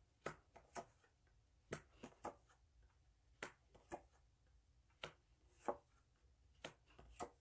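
Tarot cards being handled and laid down on a table: about a dozen short, irregular clicks and taps with quiet in between.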